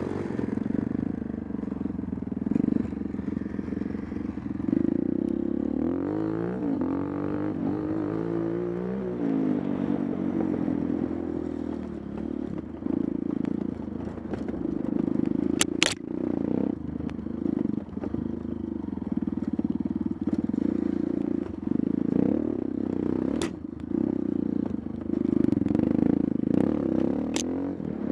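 A GIO dirt bike's engine running as the bike is ridden over rough ground, with some clatter. The revs rise and fall a few times about a third of the way in, and there are three sharp clicks, at about the middle and twice near the end.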